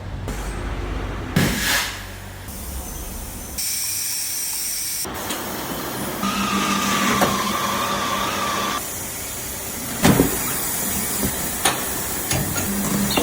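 A quick-cut series of tyre-fitting workshop sounds: air hissing and machinery running, changing abruptly every second or two, with a steady tone for a couple of seconds around the middle and a few sharp knocks near the end.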